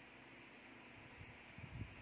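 Near silence: room tone, with a few faint low bumps about halfway through.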